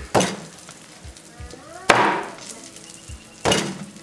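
Large kitchen knife chopping through a banana flower and striking the wooden table-top: three heavy chops about a second and a half apart.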